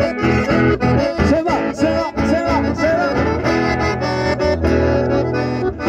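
Live band of two piano accordions and acoustic guitars playing a lively folk tune: short rhythmic chords at first, then longer held notes in the second half.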